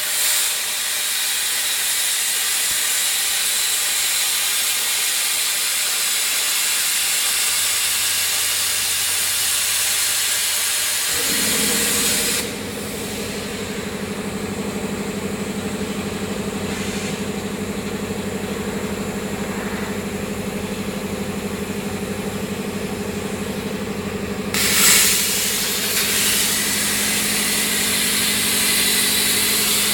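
CNC plasma cutting torch cutting steel plate with a loud, steady hiss; the arc stops about 12 seconds in, leaving a steady machine hum that starts just before. About 25 seconds in the arc strikes again with a brief louder burst and the hissing cut carries on.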